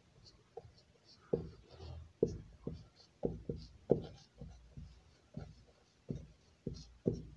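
Marker pen writing on a whiteboard: about a dozen short strokes, roughly one every half second.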